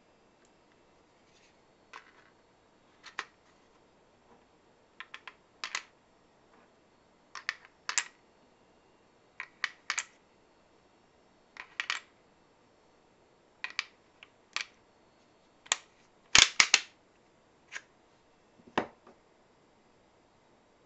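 Sharp plastic-and-metal clicks and clacks in small groups about every two seconds as cartridges are pressed through a ProMag PM017 five-round loader into an AR-15 magazine, with a louder clatter about three-quarters of the way through.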